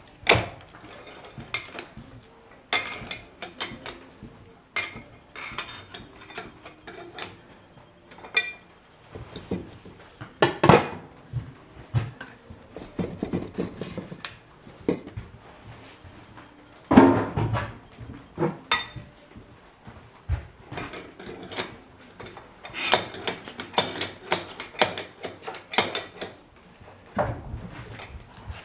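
Irregular metal clanks and clinks of steel tools and parts being handled and set down while a lathe is set up, with a few louder knocks about ten and seventeen seconds in and a busier run of clinks a little after twenty seconds.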